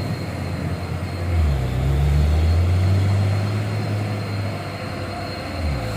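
Heavy Hino 500 dump truck's diesel engine droning low as the truck drives past; the pitch shifts about a second and a half in and bends down again near the end. No horn is sounded.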